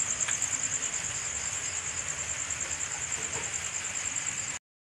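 Night insects chirping in a steady, high-pitched chorus that pulses about six times a second; it cuts off suddenly near the end.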